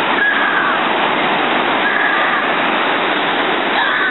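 Ocean surf breaking and washing up the shore as foam, a loud, steady rush of water.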